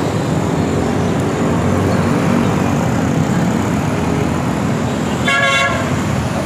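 Busy road traffic running steadily, with a vehicle horn honking once, briefly, about five seconds in.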